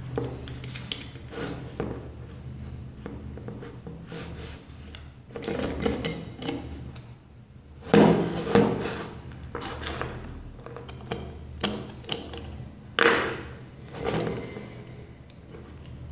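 Mixer grinder motor parts being handled and worked loose by hand during dismantling: irregular clicks, knocks and rubbing of metal and plastic parts, with the loudest knocks about eight and thirteen seconds in.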